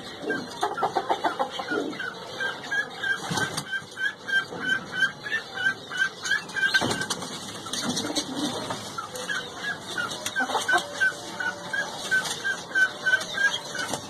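Pigeon squabs peeping: an even run of short, high cheeps, about two to three a second, with lower calls breaking in now and then.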